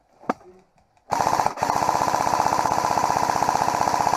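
Airsoft rifle fired on full auto: a single click, then about a second in a long rapid burst of evenly spaced shots with a short break shortly after it starts.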